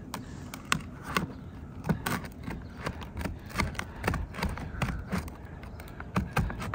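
Hand tin snips cutting through a cold asphalt roofing shingle: an uneven series of short, sharp snips as the blades close, two or three a second.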